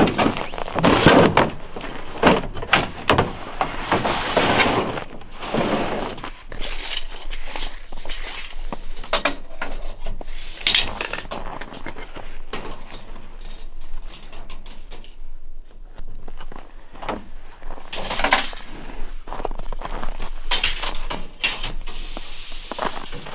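Handling noise from a long, thin ribbed ceiling panel being carried and laid on a pickup truck's tailgate: irregular knocks, scrapes and rustles, busiest in the first few seconds and sparser after.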